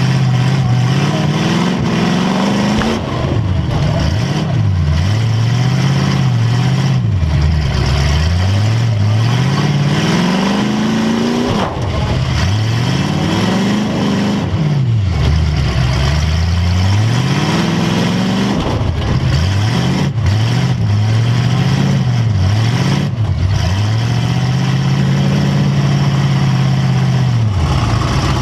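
Demolition derby car engine, heard from inside the car, revving up and down over and over. Its pitch drops and climbs again every second or two, as on a slick track where the wheels spin for grip.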